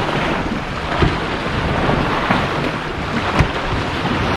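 Wind buffeting the microphone in a steady rumble over water noise, with a couple of sharp knocks, one about a second in and one near the end. The sound cuts off suddenly at the end.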